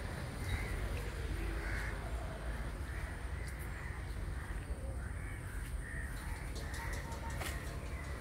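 Crows cawing, short calls repeating about every second, over a low steady rumble.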